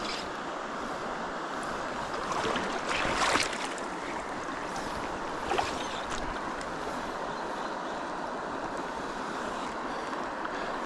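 Steady rushing of river current, with a brief louder surge of noise about two to three seconds in.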